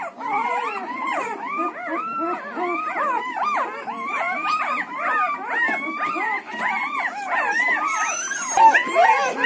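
A litter of newborn Siberian Husky puppies whining and squealing all at once, many short cries rising and falling and overlapping without a pause, one louder cry near the end.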